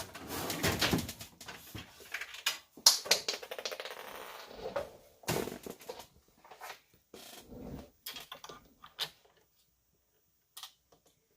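Irregular clicks, taps and rustles of small objects being handled and moved about for several seconds, then only a few faint ticks near the end.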